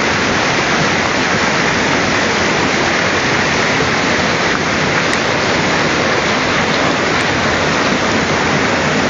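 Fast river water rushing over rocks, a steady, loud, unbroken rush.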